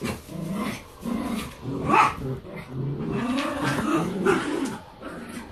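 Dogs growling in rough play, in several wavering growls, with a sharp rising yip about two seconds in.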